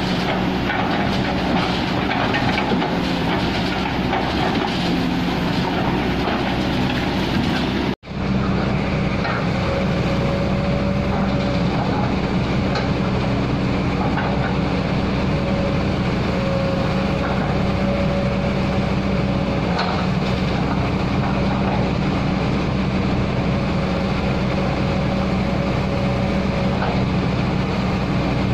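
Kobelco crawler excavator's diesel engine running steadily under working load as the arm and bucket move. The sound drops out sharply for an instant about eight seconds in, and after that a steady higher whine runs over the engine note.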